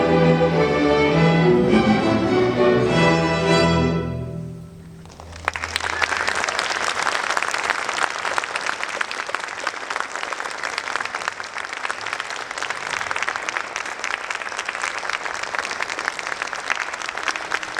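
A string orchestra plays its closing bars, which stop about four seconds in and ring away briefly. About a second later an audience starts applauding and keeps on.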